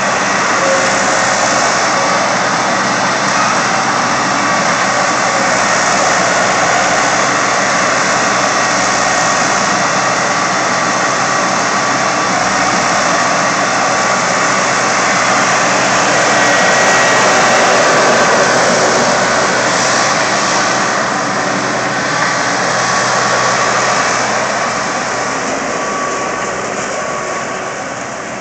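Skid steer loader engine running hard at high revs, steady with faint whining tones on top, easing off over the last few seconds.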